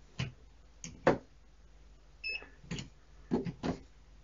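A pen-type multimeter gives one short electronic beep about two seconds in, its cue during a phase-sequence test, among several sharp clicks and taps as the test probe is pressed onto breaker terminals and the meter is handled.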